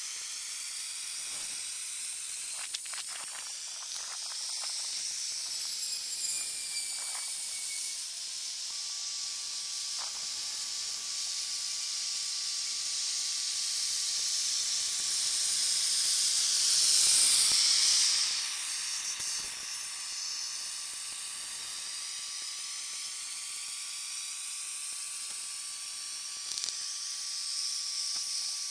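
Steady hiss of a portable propane-fired ice resurfacer's burner as it melts a thin layer of the rink surface. The hiss swells to its loudest a little past halfway, then falls back.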